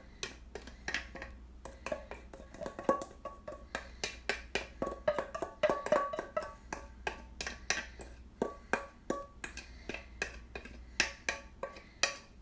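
Spoon clinking and scraping against a bowl in quick, irregular taps as muffin-mix batter is scooped out and spread, some taps ringing briefly.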